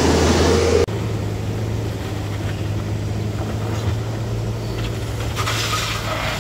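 Mitsubishi Fuso Canter light truck's diesel engine running close by, cut off abruptly about a second in. Then a steady engine hum with road noise as a car climbs a rough, broken dirt slope, with a brief rush of gritty noise near the end.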